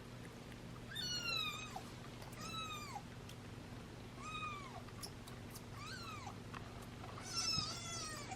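A young kitten mewing: about five short, high-pitched mews a second or so apart, each rising and then falling in pitch, over a low steady hum.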